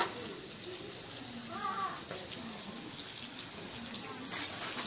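Greens frying in a steel wok over a wood fire, a steady sizzle.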